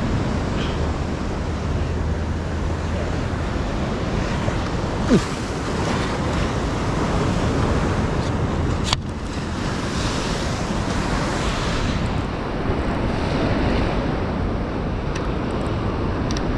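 Sea surf washing steadily below the pier, with wind buffeting the microphone. A sharp knock sounds about nine seconds in.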